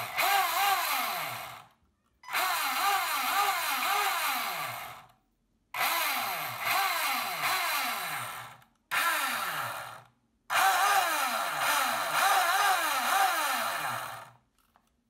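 The RC boat's MIG 500 Turbo Race electric motor spinning its propeller shaft with the boat on a stand out of water. Its whine rises and falls again and again as the throttle is pulsed, in about five spells separated by short silences.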